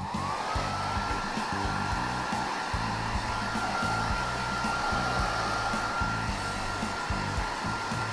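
Hair dryer switched on: its motor whine rises in pitch as it spins up in the first second, then runs at one steady pitch over the rush of air.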